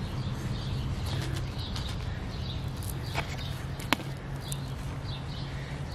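Gloved hands working soil and straw mulch around a plant's base, with two sharp clicks about three and four seconds in. Birds chirp now and then over a steady low hum.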